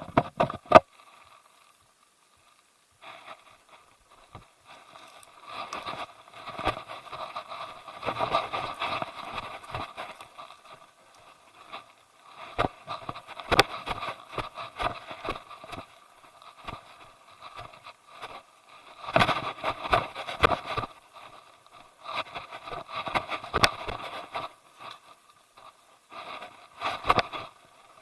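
Scraping, crunching footsteps and rubbing on the action camera as a hiker moves along a rocky trail. It comes in bursts of a few seconds with short quiet gaps between.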